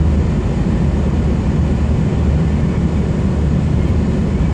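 Scania R440 truck's six-cylinder diesel engine running at low speed, a steady low drone heard from inside the cab as the truck rolls slowly in traffic.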